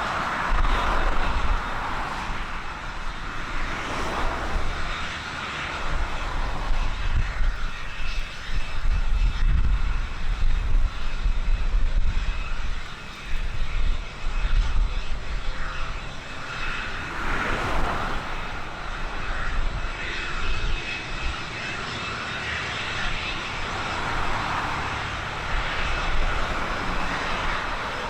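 Aircraft engine running steadily, with a continuous whine, and gusty wind buffeting the microphone in uneven low rumbles.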